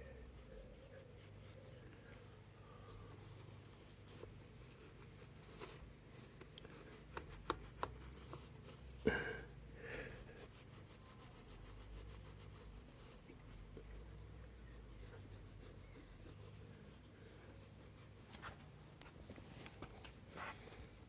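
Faint scraping and rubbing of hand cleaning on a motorcycle engine part, with scattered light metal clicks of tools and one louder knock about nine seconds in.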